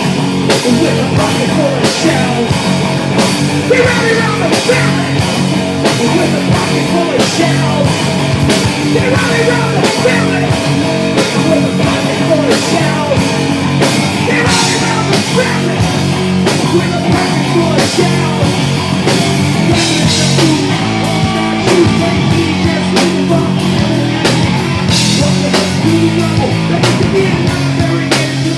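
A rock band playing loud, hard-driving music live: distorted electric guitar, bass and a drum kit keeping a steady beat.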